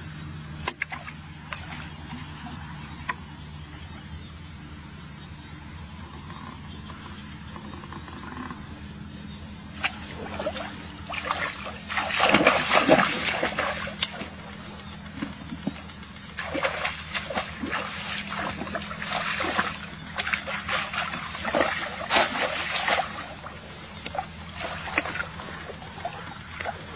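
Splashing and sloshing of shallow pond water as a person wades in and plunges a woven basket fish trap. The splashes come in an irregular run starting about ten seconds in, loudest a few seconds later.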